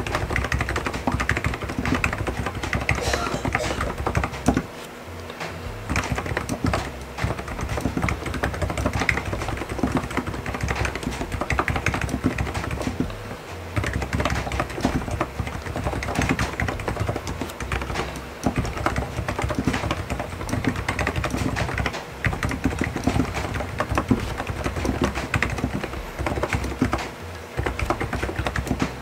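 Fast, continuous typing on a full-size computer keyboard: a dense, uneven stream of keystrokes, with a few short pauses.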